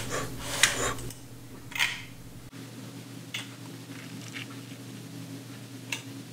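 A few short clicks and rustles from a hand working a computer mouse on a desk, the two loudest in the first two seconds and fainter ticks later, over a low steady hum.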